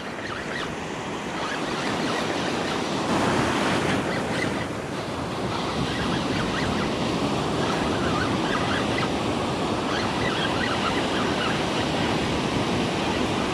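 Ocean surf breaking and washing up a sandy beach, a steady rush of water.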